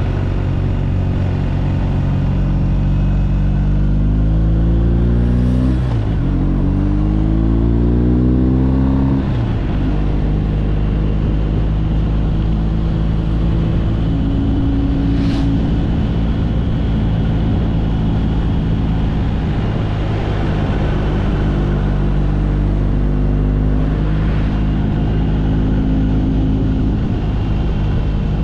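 Motorcycle engine accelerating through the gears: its pitch climbs, drops at a shift about six seconds in, climbs again and drops at a second shift near ten seconds, then holds steady at a cruise. A steady rushing noise runs underneath.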